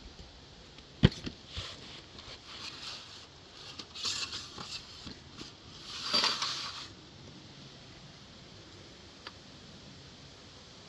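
A single sharp shot from an AR-15 fitted with a CMMG .22 LR conversion kit about a second in, followed by a fainter knock, then two brief bursts of rustling noise around four and six seconds in.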